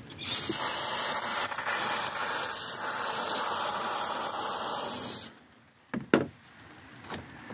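Aerosol can of starting fluid spraying into a diesel engine's air intake: a loud continuous hiss lasting about five seconds that cuts off suddenly, followed by a couple of light clicks. The spray primes the engine before cranking.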